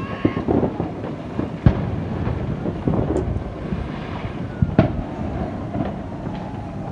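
Distant aerial fireworks going off across the city: a continuous spread of pops and bangs over a low rumble, with two sharper bangs about a second and a half in and near the five-second mark.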